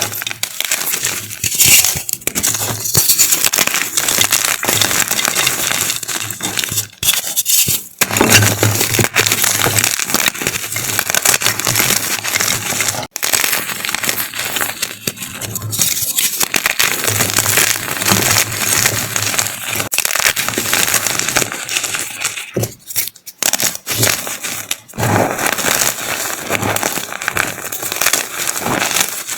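A large block of gym chalk being crushed, a dense, crisp crunching and crackling that goes on with a few brief pauses.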